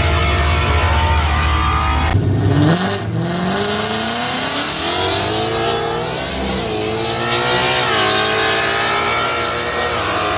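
Drag cars launching off the start line about two seconds in and accelerating hard down the strip. The engine pitch climbs steeply and drops back at each upshift, about eight seconds in and again near the end.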